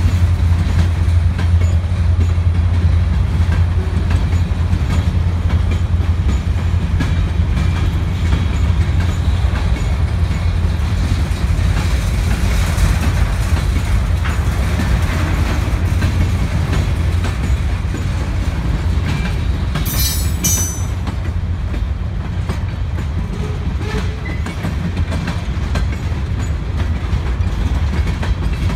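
Freight train's covered hopper cars rolling past, a steady low rumble with the wheels clicking over rail joints. A brief high-pitched squeal comes about two-thirds of the way through.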